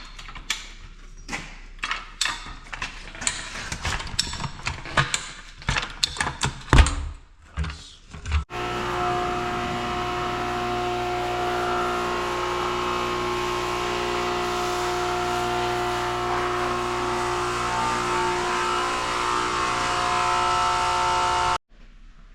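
Irregular knocks and clattering of work on equipment, then, after an abrupt cut, a machine running steadily with a constant pitched hum for about thirteen seconds before it cuts off suddenly.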